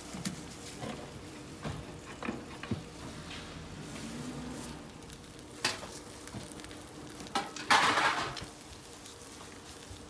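Shredded-potato rolls sizzling as they fry in a flat pan, with scattered clicks and knocks of metal pans and utensils. About eight seconds in there is a louder burst of hiss lasting about half a second.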